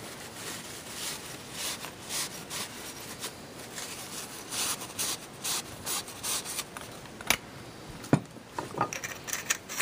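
A rag rubbing over a small metal lock ring in a run of uneven wiping strokes, with one sharp click about seven seconds in.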